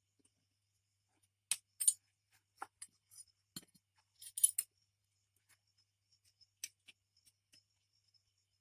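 Light, irregular clinks and clicks of small hard objects being handled. The loudest clusters come about one and a half seconds in and again around four and a half seconds in.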